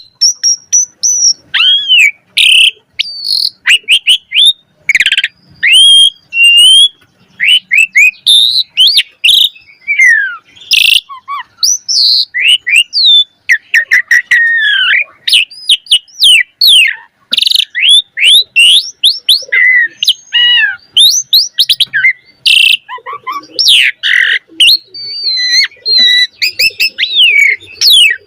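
Asian pied starling singing a rich, varied song: a rapid run of whistles and chirps sliding up and down in pitch, broken by short harsh rasping notes.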